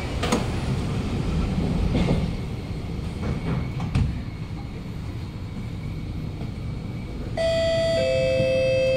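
Kawasaki Nippon Sharyo C751B train car's doors shutting with a thud just after the start, then a steady low rumble as the train pulls away. About seven seconds in, the onboard public-address chime plays two ringing notes, the second lower, signalling the next-station announcement.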